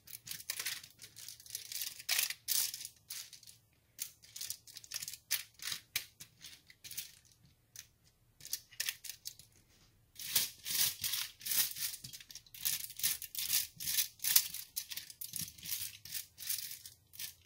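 Spatula scraping and pushing cubes of oiled butternut squash and apple across foil-lined baking trays: irregular crinkling and scraping of the foil, sparser about four seconds in and busier again from about ten seconds.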